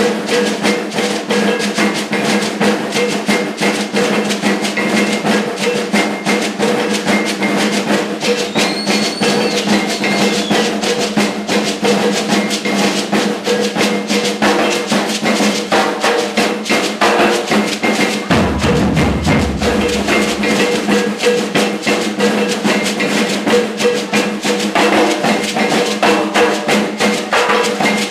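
Samba percussion playing loudly and without a break: a busy snare-drum rhythm with rolls over deep bass-drum strokes. The low drum comes through more strongly for a few seconds past the middle.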